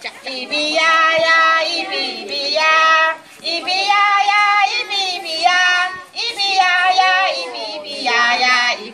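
Children and adult leaders singing a simple children's action song together, in sung phrases with short breaks between them.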